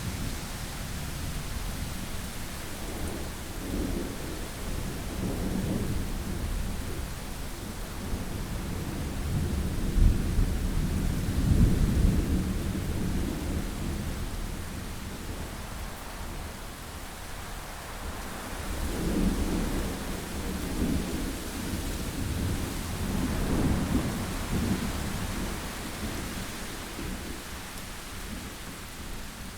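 Thunderstorm: low rolling thunder over a steady hiss of rain, with the biggest rumble about a third of the way in and two more rolls later on.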